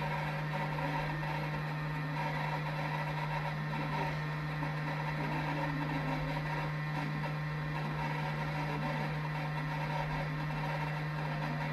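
Steady machine hum: one constant low tone with an even airy hiss over it, unchanging throughout.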